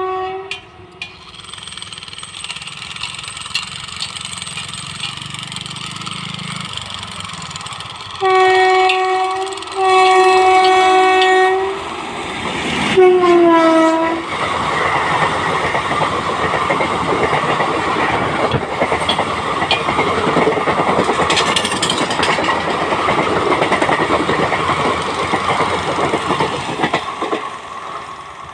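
Indian Railways express train going past: a locomotive horn sounds two long blasts, then a third whose pitch drops as the locomotive passes. The coaches follow with a long, steady rumble and clatter that fades near the end.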